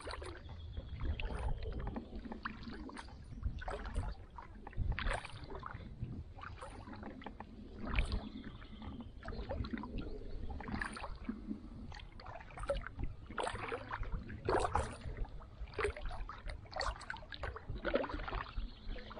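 Kayak paddle strokes dipping and splashing in calm water, with water dripping off the blades: irregular splashes roughly every second.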